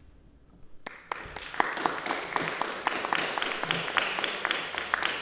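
Audience applauding, starting suddenly about a second in after near silence: many quick, irregular claps.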